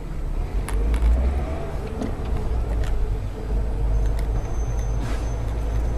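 A car driving, with a steady low rumble of engine and road and scattered small clicks and knocks.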